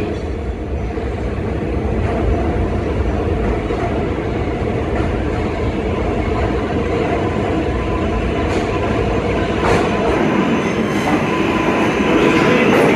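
New York City Subway R188 train running into the underground station, a continuous low rumble that grows louder near the end, with a few sharp wheel clicks over rail joints in the later seconds.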